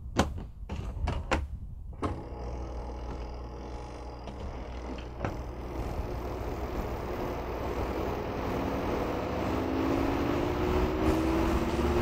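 A few sharp plastic clicks as the lids of a Panda XPB45 twin-tub washer are shut, then about two seconds in its spin-dryer motor starts and runs with a steady hum. Over the last few seconds a whine rises in pitch as the spin basket speeds up.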